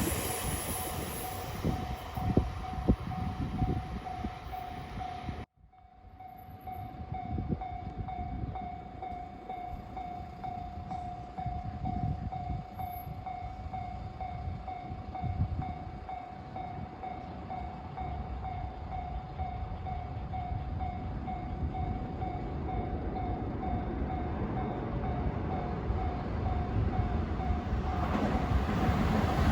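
Japanese level-crossing warning bell ringing its steady, repeating electronic ding over the rumble of passing trains. The sound cuts out abruptly for a moment about five seconds in. Near the end a 521 series electric train approaches and grows louder.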